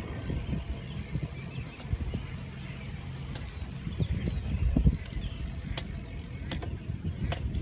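Bicycle being ridden over pavement: a steady low rumble of the ride with small knocks, and a few sharp clicks near the end.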